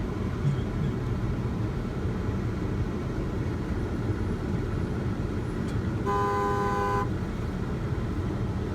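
Car horn honking once, a single blast about a second long, near the end, over the steady low rumble of a car on the road.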